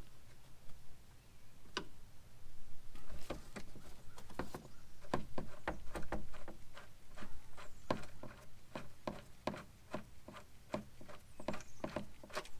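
Hand nutsert tool at work, a run of irregular metallic clicks and taps as an M6 nutsert is threaded onto the tool and set in a hole in the fender panel.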